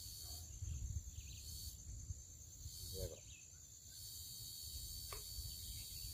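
Insects calling in a steady, high-pitched drone of two thin tones over a faint low rumble.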